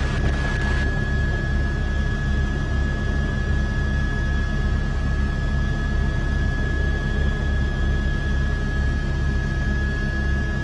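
Helicopter running steadily in flight, its turbine giving a constant high whine over a low, evenly pulsing rotor beat.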